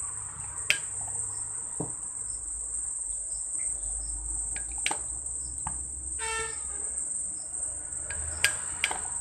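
A spoon clicking sharply against a nonstick pan several times, the loudest clicks about a second in and near the end, as marinated beef pieces are spooned into the pan before it is switched on, so nothing sizzles. A steady high-pitched trill runs underneath throughout.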